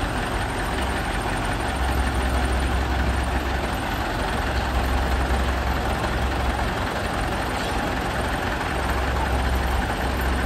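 Hindustan tractor's diesel engine idling steadily with a deep, even low throb.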